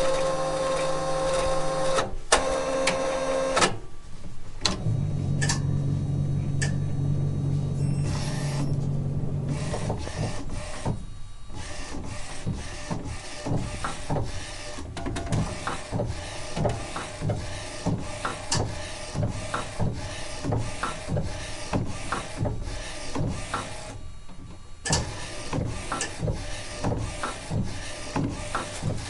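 Direct-to-garment (DTG) printer at work. It opens with a steady motor whine, settles into a low hum, then from about ten seconds in clicks steadily, roughly one or two times a second, with a brief pause about three-quarters of the way through.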